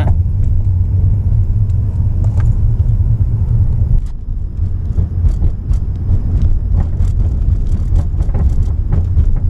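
Cabin road and engine rumble of a 2015 Dodge Dart driving over bumps and cracks in the road, heard low in the driver's footwell. From about halfway through come repeated short knocks and rattles from the front driver's side, the suspension noise the owner is tracing.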